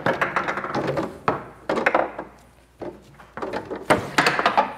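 Foosball game in play: the ball and the rod-mounted players knocking and clacking in a run of sharp hits, easing off briefly around the middle before another flurry near the end.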